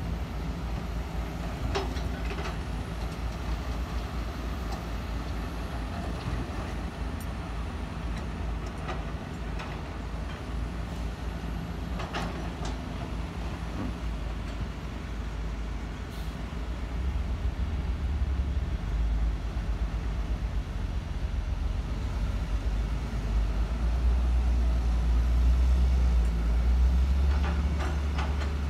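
Heavy diesel engines of Sumitomo SH210 excavators and dump trucks running under load, a steady low rumble that grows louder in the second half. A few sharp clanks break through now and then.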